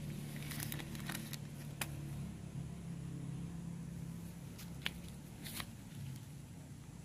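Clear plastic grafting bag crinkling and crackling in the fingers, with a handful of sharp crackles, as it is handled and taken off a side graft.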